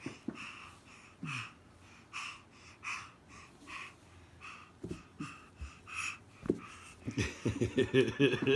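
A baby breathing in short, breathy huffs close to the microphone, about two a second, while crawling. A voice starts near the end.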